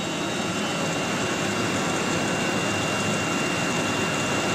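Steady machinery hum with a thin, constant high whine, unchanged throughout.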